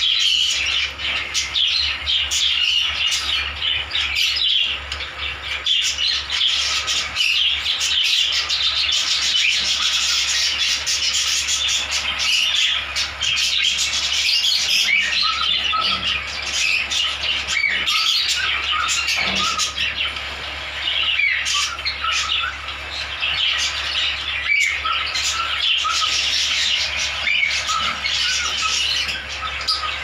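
Parrot chicks calling without pause, a dense chatter of many short, high squawks and chirps overlapping one another.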